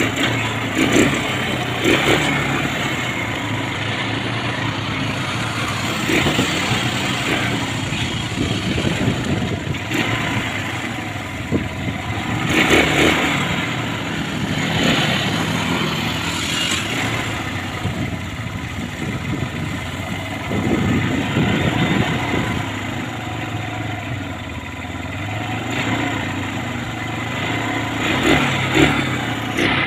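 ATV (quad bike) engine running while riding over a dirt trail, with a few brief knocks from the bumpy ground.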